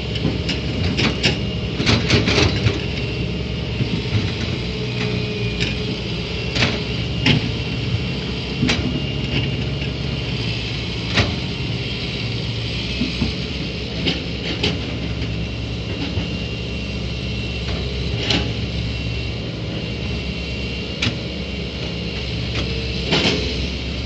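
Hitachi EX120 hydraulic excavator running steadily, with a steady high tone above the engine drone and sharp metallic clanks and knocks scattered irregularly throughout, most densely at the start and near the end.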